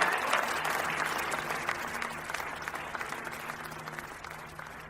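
A crowd applauding right after a short spoken remark; the clapping slowly fades away.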